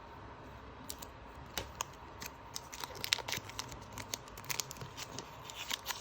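Foil Pokémon booster pack wrapper being crinkled and torn open: a scatter of short crackles that starts about a second in and grows busier around three seconds.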